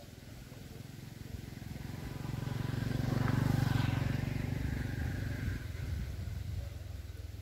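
A motor vehicle's engine passing by, growing louder to a peak about three and a half seconds in, then fading away.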